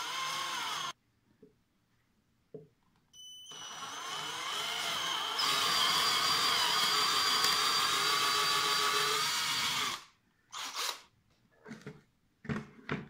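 Cordless drill boring dowel holes into a wooden board through a depth-stop collar. It runs briefly and stops about a second in, starts again about three seconds in and speeds up, then drills steadily for about six seconds before stopping. A few short knocks and scraping sounds follow near the end.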